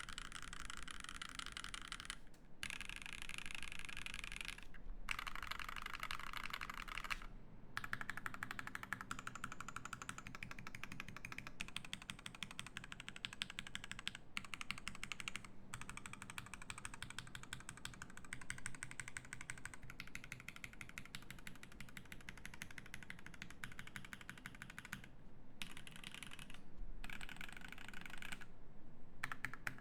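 Fast typing on a mechanical keyboard with lubed Alpaca linear switches, an aluminium plate and GMK keycaps: a steady stream of quick keystroke clacks, broken by a few brief pauses.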